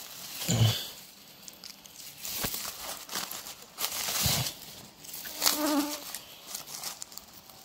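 A flying insect buzzing close by, with a short wavering hum a little past halfway through. Around it, scattered rustling and crackling of leaf litter and undergrowth.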